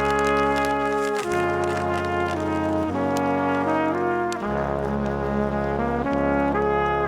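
Background music led by brass instruments, sustained chords changing about every second over a steady bass line.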